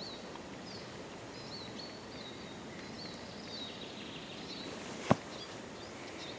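Woodland ambience: a steady background hiss with a small bird's short, high chirps repeating throughout. One sharp click or knock about five seconds in.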